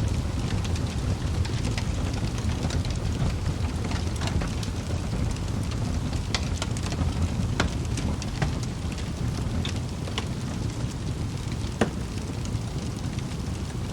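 Wood fire burning in a fireplace: a steady low rumble of flames with irregular sharp crackles and pops from the burning logs, one louder pop about twelve seconds in.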